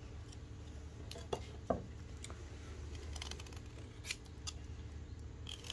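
Blade shaving and scraping a small bamboo spout for tapping date-palm sap: scattered light clicks and scrapes of steel on bamboo, with two sharper knocks between one and two seconds in.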